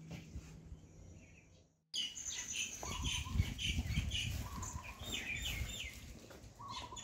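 Background music fading and cutting off about two seconds in, then birds chirping in repeated quick series over a low rumbling noise.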